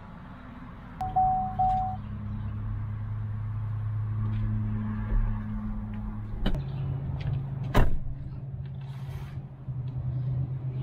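Car running with a steady low hum. Two short beeps come about a second in, and two sharp knocks come a little past the middle.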